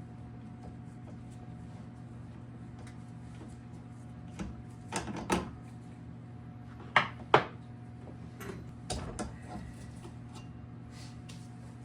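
Sharp clinks and knocks of tools and metal bike parts being handled during a dirt-bike teardown, a few scattered strikes with the loudest pair about seven seconds in, over a steady electrical hum.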